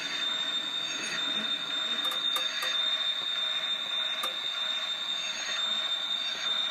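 Model train running along the track pulling a line of trucks: a steady high-pitched electric motor whine over the rolling noise of the wheels on the rails.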